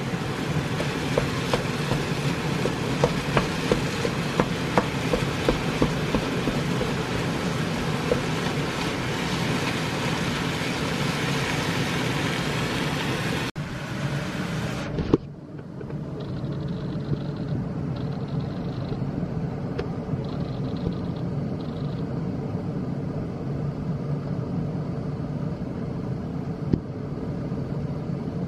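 Minced chicken sizzling in frying pans, with scattered knocks of a wooden spatula against the pan. After a cut about halfway the sizzle is quieter.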